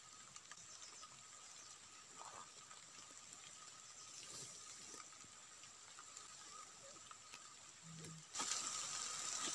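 Quiet outdoor ambience with a faint, steady high whine and a few soft rustles. About eight seconds in, a steady hiss of rain cuts in abruptly and much louder.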